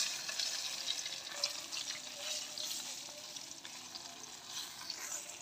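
Hot oil sizzling in an iron karahi, left from frying koi fish, with a metal slotted spatula scraping and clicking against the pan. The sizzle fades gradually.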